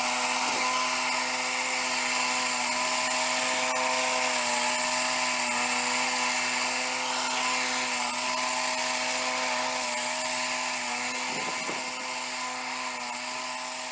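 Swing-blade portable sawmill's 13-horsepower motor running at steady speed, driving its circular blade through shallow skim cuts across the top of a log. The sound gets gradually quieter over the last few seconds.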